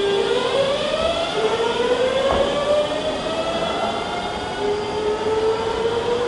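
Tobu 100 series 'Spacia' electric train's inverter drive and traction motors whining as it pulls away. Several tones rise in pitch together, then drop back and climb again a couple of times as it gathers speed, with a brief clank about two seconds in.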